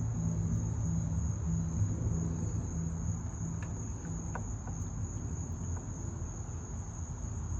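Steady high-pitched insect trill, typical of crickets, over a low wavering hum, with a few faint light clicks.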